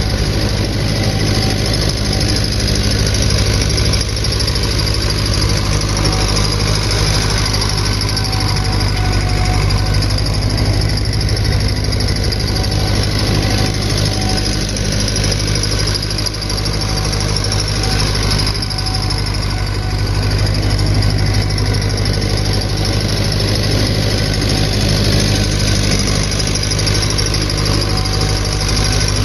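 A 1964 David Brown tractor's engine running steadily under load, pulling a harrow across a paddock, with a faint squeal that comes and goes over it.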